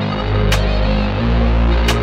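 Background music: an electronic track with sustained low bass notes and a sharp drum hit about every second and a half.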